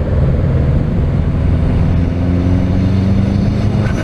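Subaru Impreza's turbocharged flat-four boxer engine running on the move with road noise, its pitch rising gently through the second half as the car gains speed.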